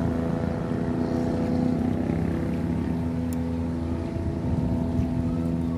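An engine running steadily, a constant drone at one even pitch.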